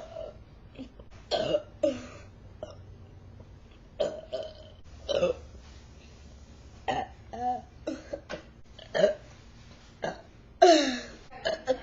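A woman burping over and over: about a dozen short, separate burps, the longest and loudest one near the end, falling in pitch.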